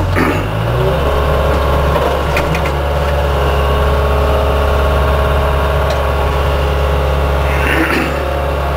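Small excavator's engine revving up about half a second in, then running steadily at the higher speed.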